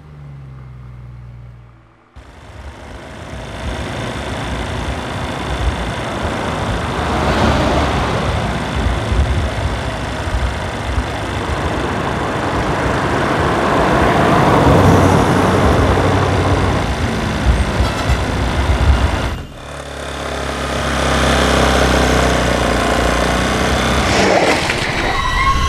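Motor vehicle engine and road noise, a low rumble under a dense hiss. It starts abruptly about two seconds in and swells, drops away briefly near the end, then builds again.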